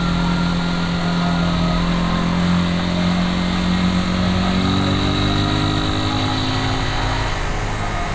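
Vehicle engine running steadily under a haze of road noise, its pitch rising a little partway through.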